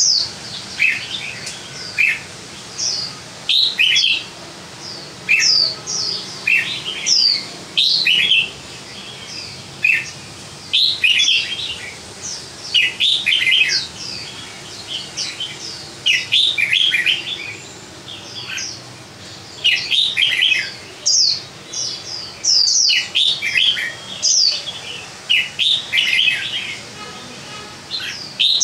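Caged songbird singing: short phrases of clear whistled notes, some sweeping up or down, repeated every second or two with brief pauses between.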